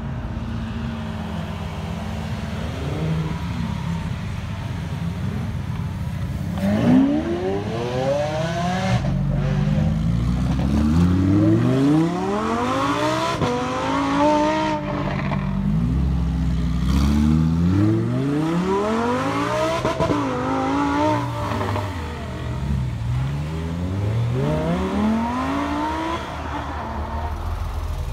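Supercar engines pulling away: a low rumble for the first several seconds, then hard acceleration as a run of rising revs, each broken off by a gear change, one after another, then settling back to a rumble near the end.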